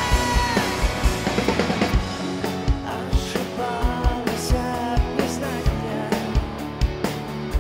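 Live pop-rock band music: a steady kick-drum beat under guitars and keyboards, with a long held note that bends down and ends about half a second in.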